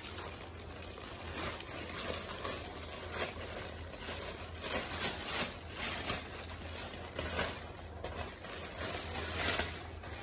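Plastic courier mailer bag crinkling and rustling as it is handled, in irregular bursts, over a faint steady low hum.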